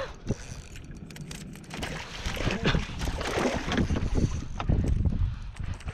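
Irregular knocks and water slapping against a small aluminum fishing boat's hull, with no motor running; the knocking gets busier after about two seconds.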